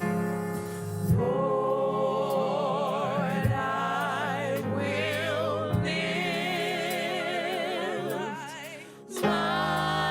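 Slow gospel worship song: voices hold long notes with vibrato over a steady instrumental accompaniment. The music dips briefly near the end, then comes back in.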